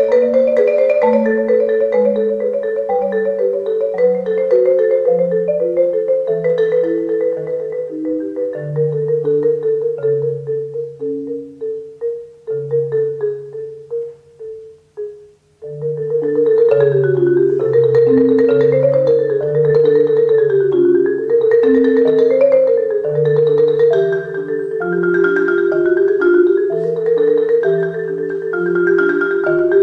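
Solo marimba played with mallets: quick repeated notes over a bass line that steps downward, thinning and dying away almost to nothing about halfway through. Then it comes back in loud with fast, dense figures rising and falling over low bass notes.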